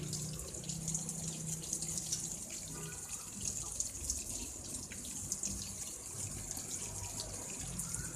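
Water running steadily, like a tap or hose, with a low hum underneath and small wet clicks as fish fillets are handled.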